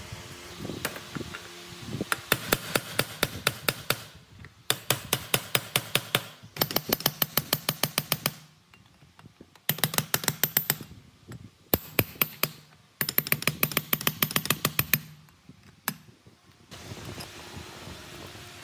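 Rapid, evenly spaced tool strikes, about eight to ten a second, in half a dozen runs of one to two seconds with short pauses between them.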